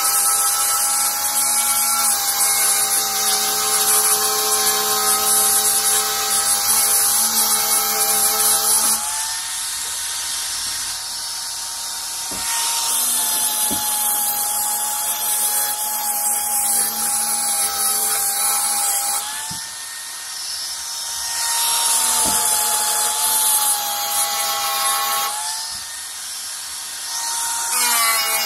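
Handheld angle grinder with an abrasive disc sanding down body filler on a car door panel: a steady motor whine under a loud grinding rasp. The rasp eases off three times for a few seconds as the disc is lifted or pressed more lightly, then comes back.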